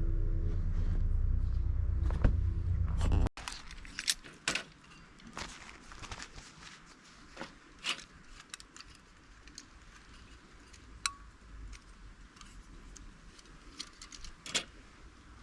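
A steady low hum that cuts off suddenly about three seconds in, followed by scattered light clicks and clinks of small metal and plastic gear being handled.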